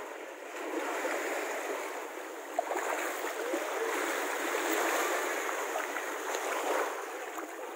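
Small sea waves breaking and washing up a sandy shore in a steady wash of surf, with one brief click about two and a half seconds in.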